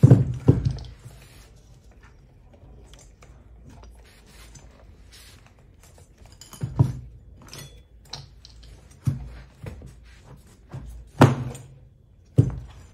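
Irregular thumps and knocks as a rubber tyre is pushed and levered by hand onto an electric scooter's hub-motor wheel rim. The loudest knocks come right at the start and about eleven seconds in.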